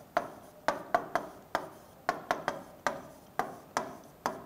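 Marker pen writing on a board: a quick run of short taps and strokes, about three a second, as each letter is drawn.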